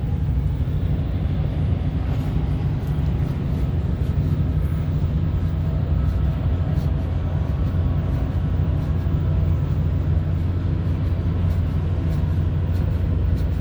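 Steady low engine rumble of a vehicle running at an even pace, holding the same level throughout.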